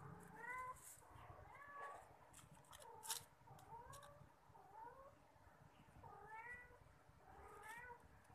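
Cat meowing: a steady run of short, faint mews, each curving up in pitch, about two a second.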